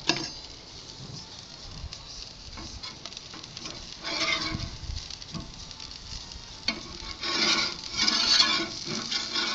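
Burger patties sizzling on a charcoal grill grate. A spatula scrapes along the grate as the patties are lifted and turned, in two louder spells about four and seven seconds in.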